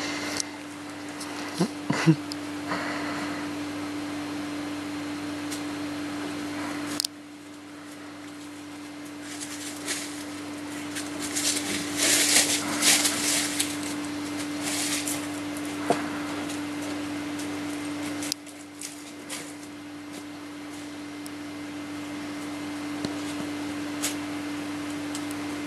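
A steady low hum with scattered rustling and snapping of leaves and brush as heavy Neapolitan mastiffs push about in the undergrowth, busiest around the middle.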